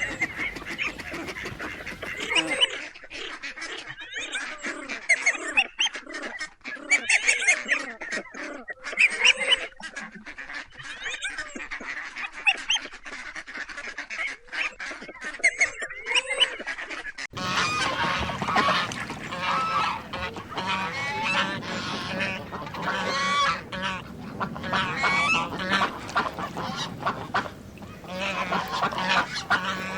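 A flock of waterfowl calling over and over, many birds at once. The sound changes abruptly about two seconds in and again a little past halfway.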